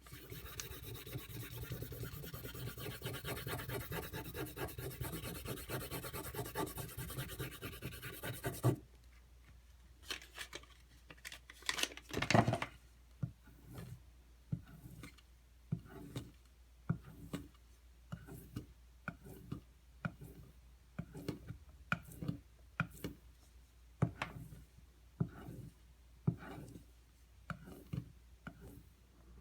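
Knife blade being stroked across a sharpening whetstone to polish the bevel: about nine seconds of rapid back-and-forth scraping, then slower separate strokes roughly one a second, one louder than the rest about twelve seconds in.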